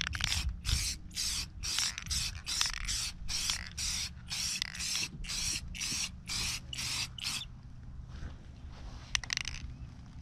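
Aerosol spray-paint can spraying black paint onto a steel engine oil pan in short bursts of hiss, about two a second. The bursts stop about seven seconds in, with one more brief spray near the end.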